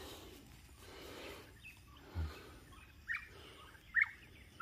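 Chickens giving a few short, high calls, three of them close together in the last two seconds, over a faint background. A soft low thump about two seconds in.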